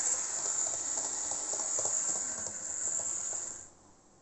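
HO-scale model railcar running on the track: a steady high electric-motor hiss with irregular clicks and ticks from the wheels on the rails, cutting off suddenly about three and a half seconds in as the railcar stops. The owner blames its poor running on the humidity.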